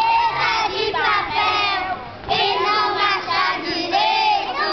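A group of children singing a gospel song together, with a brief break a little after two seconds in.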